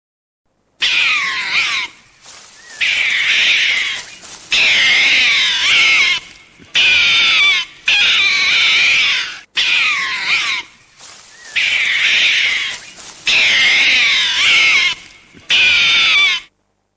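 An animal calling over and over: about nine loud calls, each about a second long, with a high pitch that wavers up and down, separated by short pauses.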